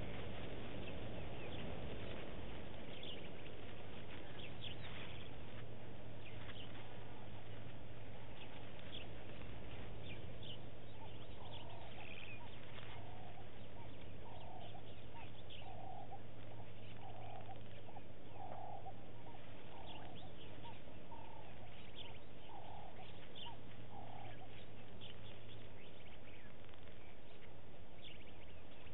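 Bush ambience under a steady hiss and low hum, with scattered high bird chirps. Midway, a bird gives a series of about a dozen short, low, evenly spaced calls, and the hum stops near the end.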